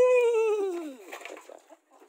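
A cat meowing once: a single drawn-out meow that rises and then slides down in pitch over about a second.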